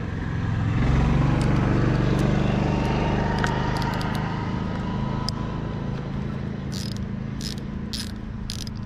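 A vehicle engine drone swells about a second in and slowly fades. From about seven seconds in, a hand ratchet clicks about twice a second as a bolt on the outboard's carburettor is worked loose.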